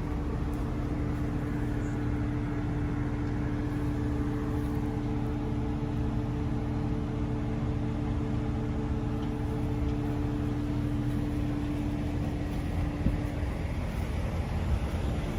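A farm machine's engine running steadily at a constant speed with an even hum. The hum fades out about thirteen seconds in, leaving wind on the microphone.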